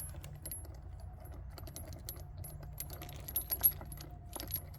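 Keys jangling and small metal clicks as a key is worked in a Master Lock padlock, a few louder clicks in the middle. The lock has been hit by a 9mm round and is seized, so the key will not open it.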